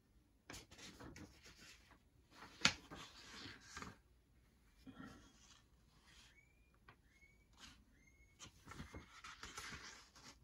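Paper rustling and light clicks and taps from board-wargame papers and pieces being handled on a tabletop, with one sharp click a little over two seconds in. A few short, high, rising chirps come near the middle.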